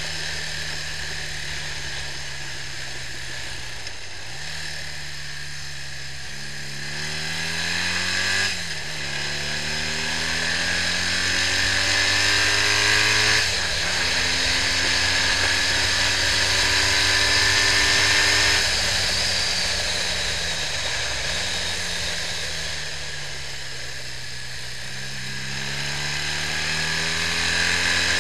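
BMW R65's air-cooled flat-twin boxer engine under way on the road, accelerating up through the gears. The revs climb and drop sharply at each upshift, about four, eight and thirteen seconds in, then hold fairly steady, ease off, and rise again near the end.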